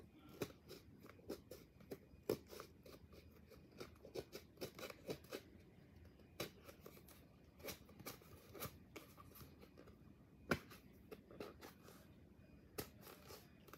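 Faint, irregular clicks and scratches of hands handling and picking at a plastic water bottle.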